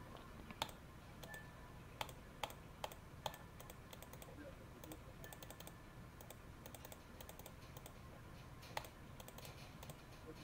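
Faint, scattered clicks at a computer as the poker hand replayer is stepped forward. The sharpest clicks come about half a second in, as four between two and three and a half seconds, and once near the end.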